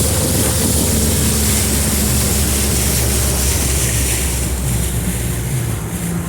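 Mercury two-stroke outboard motor running steadily with the boat under way, under a loud rush of wind and water noise. The rushing eases over the last couple of seconds.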